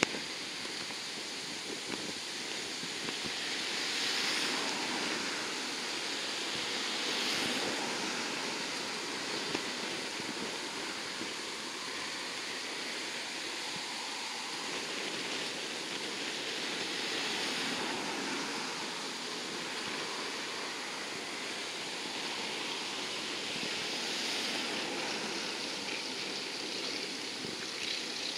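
Four Allison T56 turboprop engines of a Lockheed P-3B Orion running at takeoff power during its takeoff roll, heard from a distance as a steady rushing noise that swells and eases several times.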